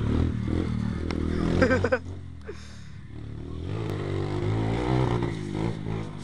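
Orion X-125 pit bike's small single-cylinder engine running and revving up and down as it rides around. It is loud at first, drops off, swells again about five seconds in, then fades.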